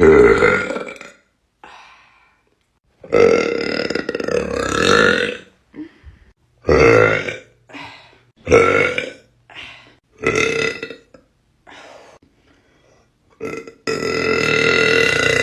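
A person burping repeatedly: a string of about eight loud burps, most short, two drawn out for around two seconds, one a few seconds in and one near the end.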